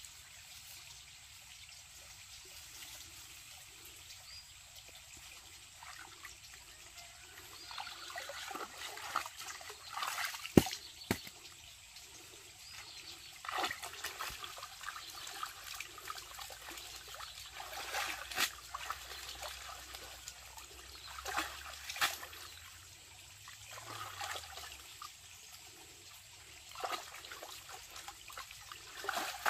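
A bunch of water spinach being dunked and swished in stream water, splashing and sloshing in repeated bursts every two to four seconds, with a sharp slap of water about a third of the way in. Before the washing starts, several seconds of steady trickling water.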